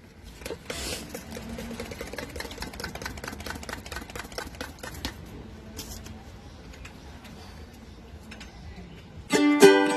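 Glowing charcoal in a small portable grill crackling and popping in many quick, irregular clicks as it is fanned, thinning out toward the end. Ukulele music comes in right at the end.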